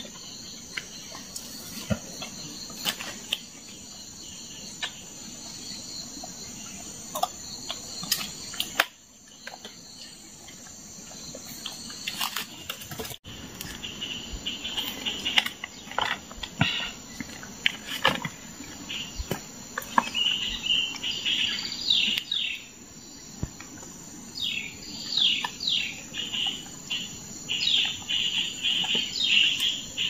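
Forest ambience: a steady high-pitched insect drone, with scattered clicks and rustles of fruit being picked up from dry leaf litter. From about halfway, bursts of rapid high chirping calls come again and again.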